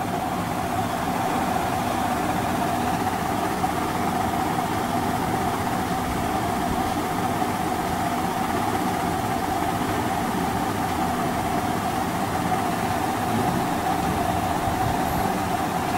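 A steady mechanical hum with one constant mid-pitched tone, unchanging throughout.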